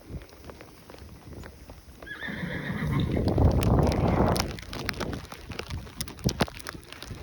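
A horse neighs once, starting about two seconds in and lasting about two seconds, the loudest sound here. Scattered short knocks and rustles follow.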